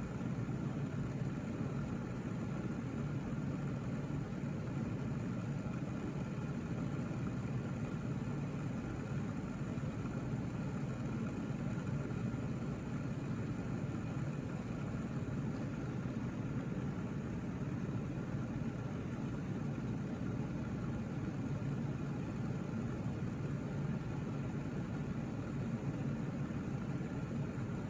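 A steady low machine hum with a faint whir.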